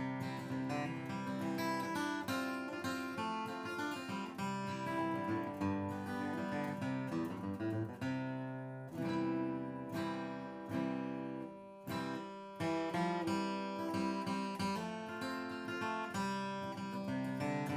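Martin D-42 dreadnought acoustic guitar played with a flatpick: strummed chords mixed with picked notes, the strings ringing between strikes.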